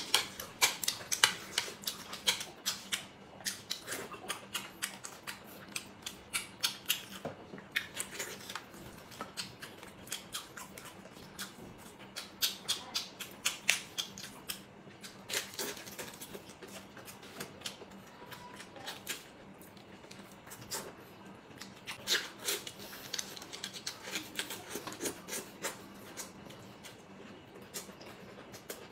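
Close-miked eating sounds from a man eating: wet chewing and lip-smacking in rapid clicky bouts that come and go. A faint steady hum lies underneath.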